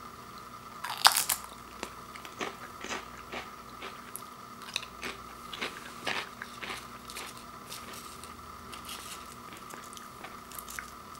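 Potato chips being bitten and chewed close to the microphone. One sharp, loud crunch comes about a second in, followed by a run of smaller, irregular crunches.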